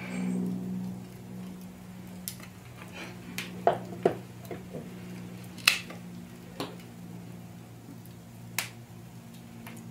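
A series of separate sharp clicks and taps, about eight of them at uneven intervals, the loudest a little before the middle, over a low steady hum.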